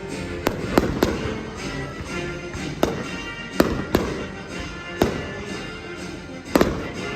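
Fireworks bursting: about eight sharp bangs at uneven intervals, over music playing.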